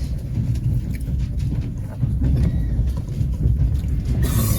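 Passenger train carriage rumbling along the track, with faint clicks of the wheels. A short loud hiss about four seconds in.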